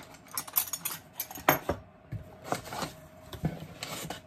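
Small metal hand tools, wrenches and a spark plug wrench, clinking and rattling as they are handled in a tool pouch, with a string of sharp clicks, the loudest about a second and a half in.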